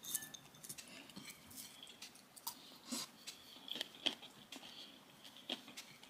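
A person chewing while eating fried rice and dried fish by hand, with irregular small clicks and taps of fingers against a plate.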